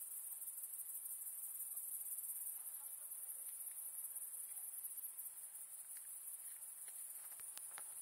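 Crickets chirring: a continuous high-pitched insect buzz, with a few faint ticks near the end.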